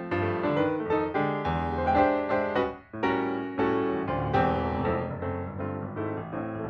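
Background piano music, a steady run of notes and chords with a brief pause about three seconds in.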